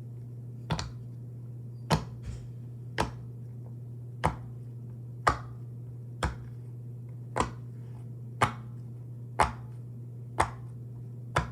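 Silicone pop-it fidget toy having its bubbles pressed one at a time: a sharp pop about once a second, about a dozen in all, on its louder-popping side.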